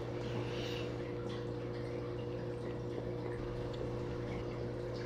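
A steady low hum with a few constant tones over a faint hiss, unchanging throughout.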